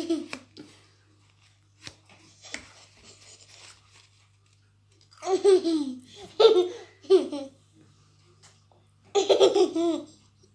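A toddler laughing: a run of short, bubbling bursts of giggles about five seconds in, then another burst near the end.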